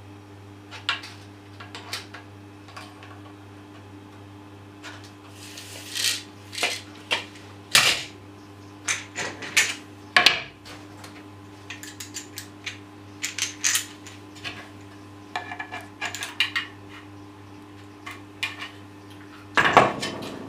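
Plywood pieces and small wooden parts being handled and set down on a concrete floor: scattered clacks and knocks, a few louder ones, over a steady low hum.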